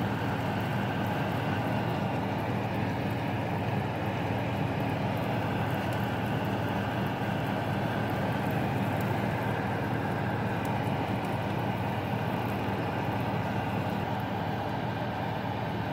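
Kitchen fan running with a steady, unchanging hum and whir.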